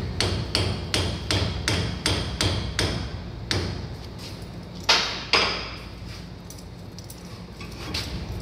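Hand hammer striking a railroad spike clamped in a bench vise: a run of about ten quick blows, roughly three a second, then after a short pause two louder blows half a second apart.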